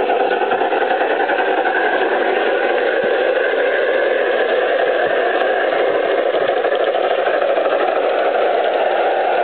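Large-scale USA Trains model Big Boy locomotive running along garden railway track: a steady mechanical whirring drone from its motors and gearing, with a fast, even flutter.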